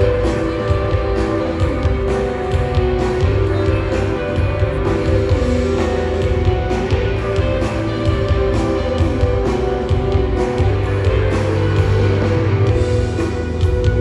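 Guitar-driven rock music with sustained chords over a heavy low end.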